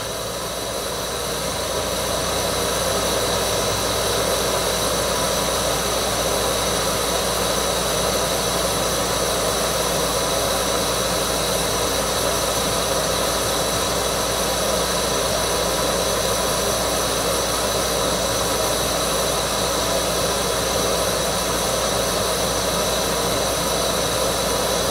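Camp stove's gas burner running steadily under a canteen cup of water that is heating toward the boil, at about 180 °F.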